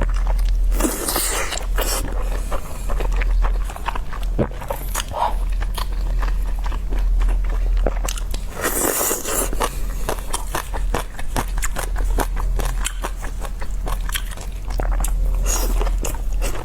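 Close-miked chewing and biting of steamed dumplings, with many small wet mouth clicks and a few louder bites, under a steady low hum.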